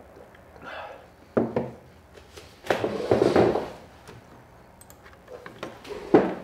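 Handling sounds at a desk: a ceramic coffee mug set down with a sharp knock about a second and a half in, then a longer rustling shuffle as a person shifts in a chair, and another knock near the end.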